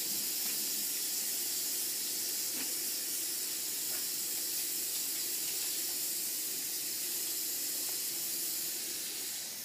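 Kitchen faucet running in a steady stream, the water splashing onto a cat's wet fur and into the sink.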